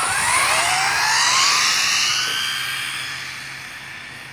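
Electric motor and drivetrain of a nitro-to-electric converted OFNA Hyper 7 RC buggy whining sharply up in pitch as it accelerates at full throttle. The whine levels off after about two seconds and fades steadily as the buggy speeds away.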